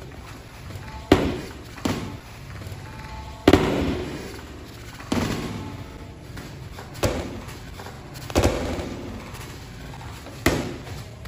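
Boxing-glove punches landing in sparring: seven sharp smacks spaced one to two seconds apart, each with a short echo.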